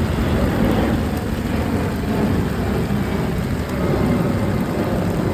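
Rain falling steadily, with a dense even hiss of drops over a low rumble.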